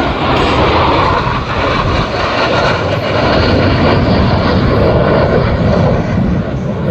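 Loud, steady jet noise from Blue Angels F/A-18 Hornets flying past.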